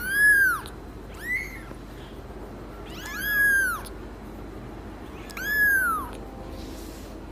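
A cat meowing four times, each call rising and then falling in pitch; the second meow is short and fainter than the others.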